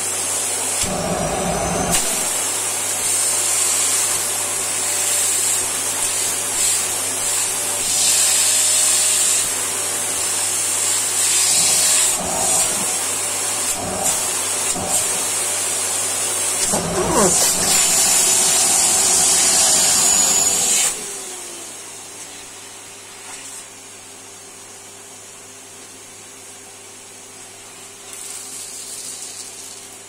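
Canister vacuum cleaner running, its plastic tube sucking at a sock with a loud, steady rushing hiss whose pitch bends briefly a couple of times. About 21 s in the loud suction noise drops away, leaving the machine's steady hum.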